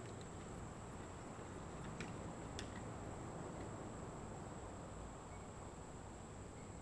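Faint outdoor background hiss with a steady high-pitched whine, and two small clicks about two seconds and two and a half seconds in.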